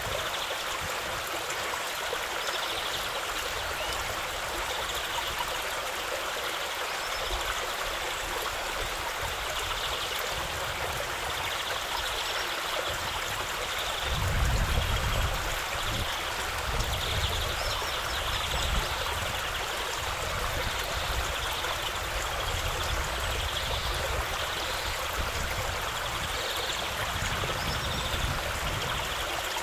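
Shallow stream running over gravel and stones: a steady rush and trickle of water. Low rumbles come and go in the second half, loudest about halfway.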